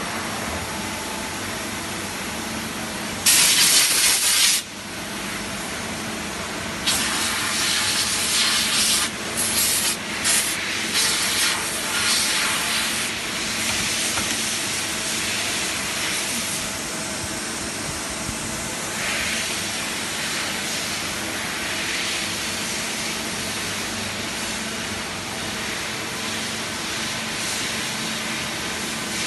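Compressed-air blow gun hissing in bursts: one long blast about three seconds in, then a string of shorter blasts from about seven to thirteen seconds in. Beneath it runs the steady hum of a CNC lathe.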